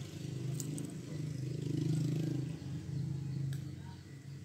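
A motor engine running steadily, growing louder to about two seconds in and then fading away, like a motor vehicle passing by. A couple of light clicks sound over it.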